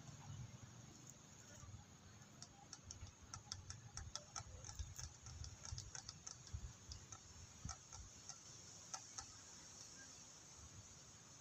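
Faint, irregular clicking, a few ticks a second through the middle of the stretch, over a low rumble.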